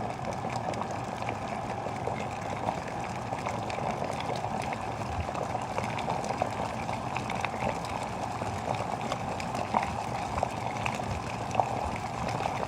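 Water at a full rolling boil in an Ovente KG83B glass electric kettle: a steady rushing bubbling with many small crackles and pops.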